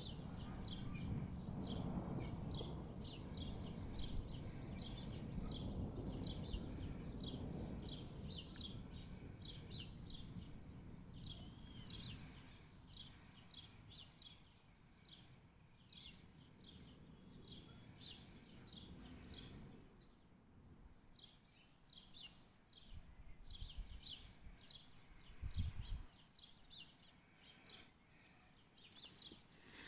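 Distant thunder rumbling low and slowly dying away over the first half, while a small bird chirps over and over, several times a second, throughout. A short low thump comes near the end.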